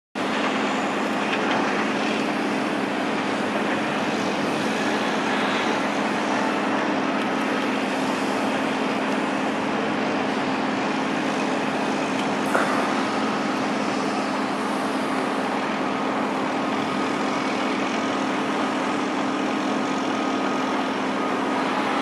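Steady mechanical din of a sawmill log yard with a loaded log truck moving slowly through it. A constant low hum sits under even noise, and there is one short sharp knock about halfway through.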